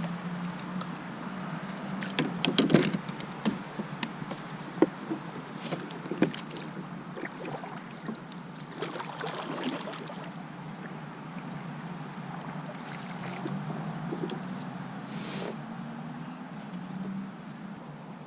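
Kayak on the water: a cluster of hard knocks about two to three seconds in and a few single taps after, like gear or a paddle hitting the hull, then swishing water with paddle strokes. A steady low hum and short high chirps run underneath.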